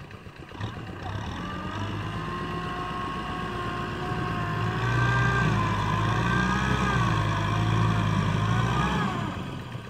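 Tractor engine running under load, its pitch wavering as it works, growing louder around the middle and falling away near the end.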